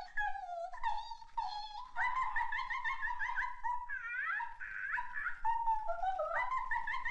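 High-pitched, animal-like whimpering cries: many short squeals that rise and fall rapidly, one after another.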